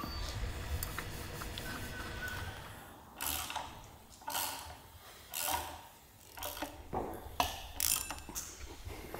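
Socket ratchet wrench clicking in short strokes, roughly one a second and quicker towards the end, as a nut is run down on a stud on a bare engine block. A low, steady rumble fills the first few seconds.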